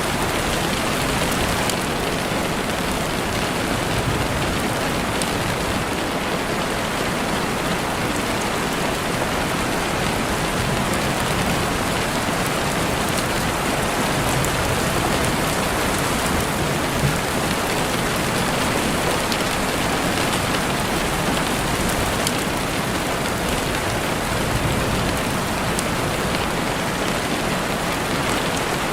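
Steady rain falling, a dense even hiss, with a few sharp pops from a crackling campfire scattered through it; one pop about 17 seconds in stands out.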